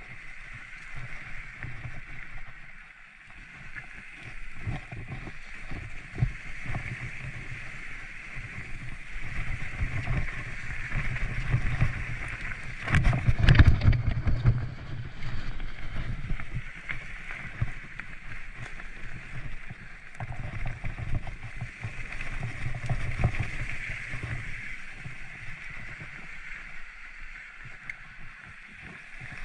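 Mountain bike riding over a rough trail: irregular low knocks and rattles from the tyres and frame hitting bumps, over a steady high hiss. The heaviest jolts come about halfway through.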